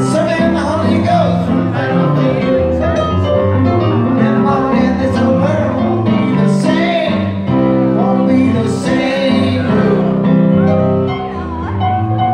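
Stage keyboard played with a piano sound, chords and melody, with a man singing over it.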